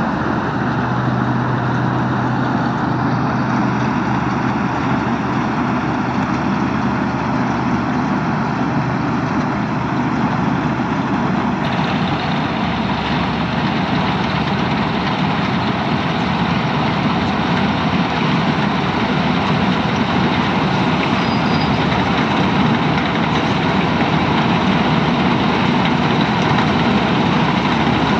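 Combine harvester running steadily while cutting paddy, its engine and threshing machinery making a continuous drone that grows a little louder toward the end as it comes closer.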